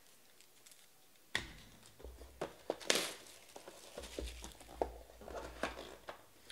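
Plastic shrink wrap being torn and crinkled off a cardboard trading-card box, with clicks and taps as the box is handled and opened. It starts about a second and a half in with a sharp knock, with a louder crackling tear about three seconds in.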